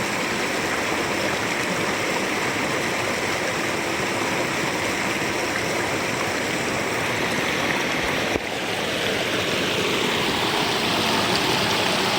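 River water flowing steadily in a continuous rush, with a brief break about eight seconds in.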